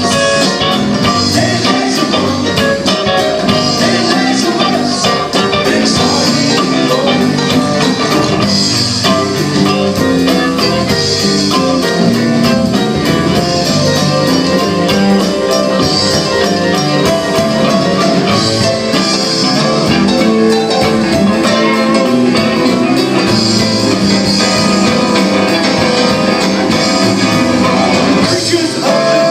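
A live band playing a song with a steady beat, loud and continuous.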